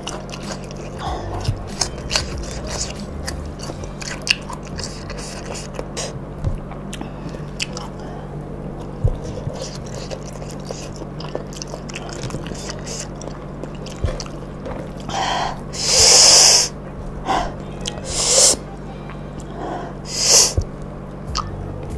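Chewing with many wet mouth clicks and lip smacks as rice, cucumber and sambal are eaten by hand. About two thirds of the way in come three loud, sharp hissing breaths drawn through the mouth, against the heat of a very hot chili sambal.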